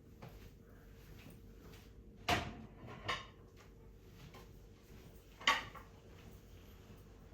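Dishes clinking as they are handled. There is a sharp knock with a short ring about two seconds in, a lighter one just after it, and another sharp one about five and a half seconds in.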